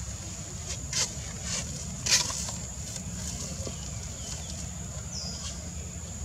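Outdoor forest ambience: a steady high-pitched drone over a low wind rumble. Two sharp clicks come about a second apart near the start, the second louder, and a brief high chirp comes about five seconds in.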